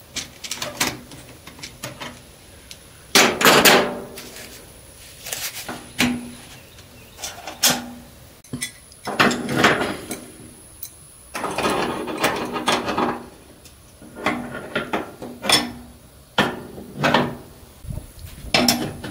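Wrenches clinking and scraping on the brass flare nuts of a mini-split heat pump's refrigerant line connections as they are tightened: irregular metallic clicks and knocks with a few longer scraping noises.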